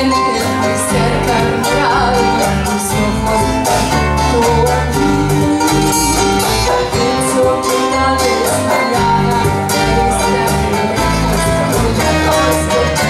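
A woman singing live into a microphone, accompanied by a small acoustic band with guitar and a walking bass line.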